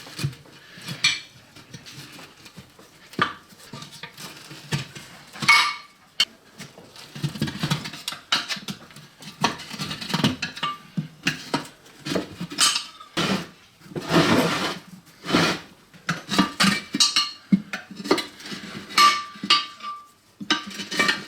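Steel tools, a screwdriver and a spanner, prising a tyre bead up over a wheel rim by hand: irregular metallic clinks, knocks and scrapes against the rim, a few of them ringing briefly.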